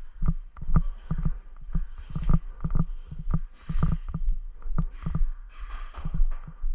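Footsteps and gear thumps, two to three a second and uneven, with short bursts of rustling between them.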